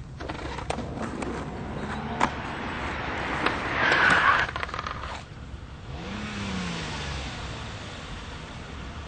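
Car driving on the road: tyre and engine noise swells to a loud peak about four seconds in, and an engine note rises and falls a couple of seconds later.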